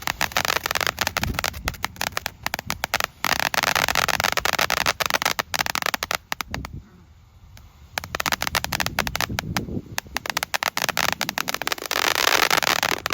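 Consumer fireworks crackling: a dense stream of rapid crackles and pops that drops out briefly about seven seconds in, then resumes, growing into a thicker, steadier crackling spray near the end.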